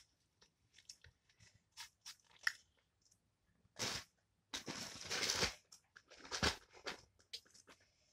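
Paper napkin being crumpled and rustled close to the microphone as hands are wiped. Faint scattered crackles come first, then louder crinkling bursts about four, five and six and a half seconds in.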